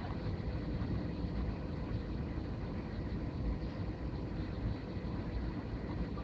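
Steady engine and airflow noise heard inside an airliner cabin, mostly low rumble with a faint steady hum on top.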